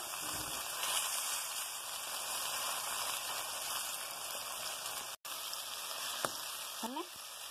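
Diced tomatoes sizzling in hot oil in a kadai, a steady hiss, as a spatula stirs them. The sound cuts out for an instant about five seconds in.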